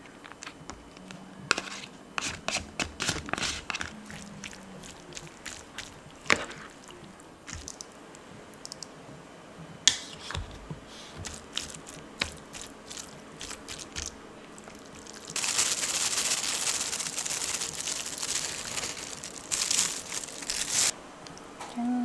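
A metal spoon clicks and scrapes against a plastic food container as cooked rice is scooped in and mixed with ketchup. Near the end comes about five seconds of steady plastic-bag crinkling as shredded cheese is added.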